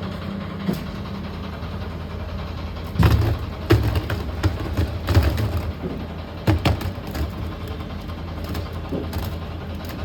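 Steady low machine hum, like a motor running, with a cluster of sharp knocks and clatters between about three and seven seconds in.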